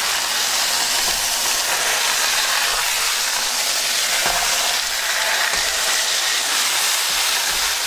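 Corned beef brisket searing in hot peanut oil in a skillet: a steady sizzle and hiss of frying.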